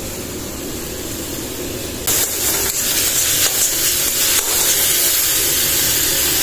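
Onion, grated carrot and tomato sizzling in hot mustard oil in an iron kadhai. About two seconds in the sizzle gets suddenly louder and stays up as a steel spatula stirs and scrapes the vegetables around the pan.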